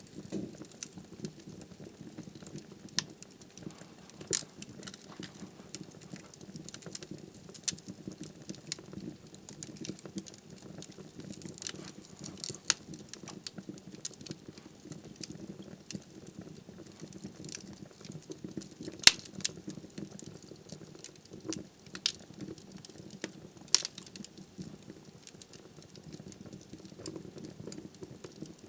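Wood fire burning in a fireplace hearth: a steady low flame rumble with irregular crackles and sharp pops of burning firewood, a few pops much louder than the rest.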